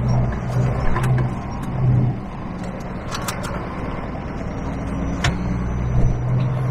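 Truck engine running, heard from inside the cab, with a low hum that swells and eases, and a few sharp clicks about one, three and five seconds in.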